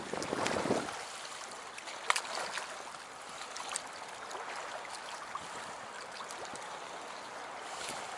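Lake water lapping and trickling against the shore and a wooden post, louder in the first second, with a few light clicks, the sharpest about two seconds in.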